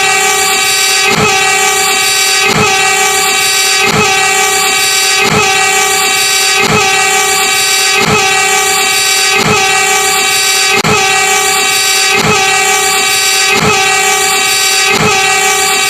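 Horn of an Indonesian railway track-measuring car, held continuously as a steady chord of several tones, with a short click about every second and a half.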